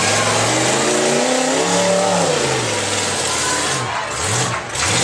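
Demolition derby car engines revving, rising and then falling in pitch about halfway through, over a loud, steady wash of noise.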